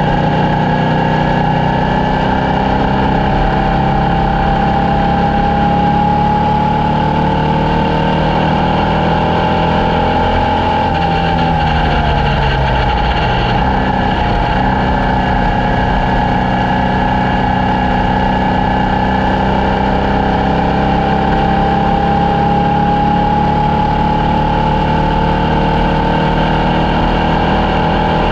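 Formula Vee race car's air-cooled Volkswagen flat-four engine running hard. Its pitch climbs slowly, drops steeply about ten to fourteen seconds in, then climbs again.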